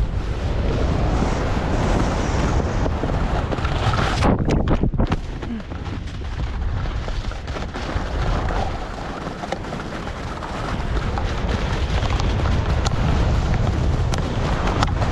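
Wind buffeting a head- or mouth-mounted action camera's microphone during a fast ski descent, a steady low rumble, with skis hissing and scraping over tracked, chopped-up snow. The hiss breaks off briefly about four seconds in.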